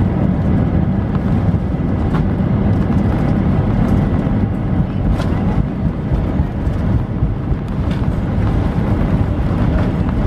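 Cabin noise of an Airbus A320 rolling along the runway after landing: a steady deep rumble from the engines and wheels, with a few light knocks and rattles.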